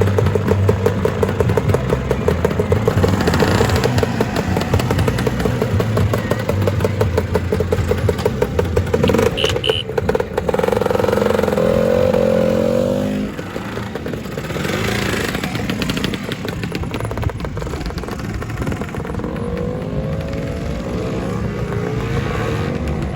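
Two-stroke Lambretta scooter engines running and revving as scooters ride off, their pitch rising and falling as they go by. There is a brief high beep about ten seconds in, and the engines are quieter after about thirteen seconds.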